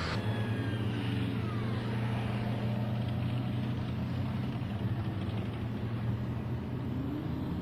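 Heavy vehicle engine running steadily with a low, even drone.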